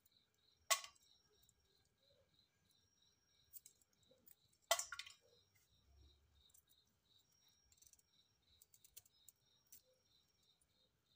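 Crickets chirping steadily and faintly, about three chirps a second, broken by two sharp clicks about one second and five seconds in.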